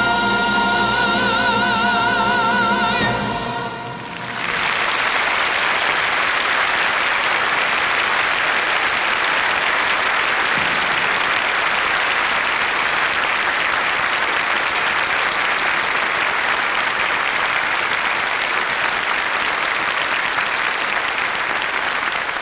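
A choir holds the final chord of a hymn with vibrato, cutting off after about three and a half seconds. Steady applause then follows for the rest of the time.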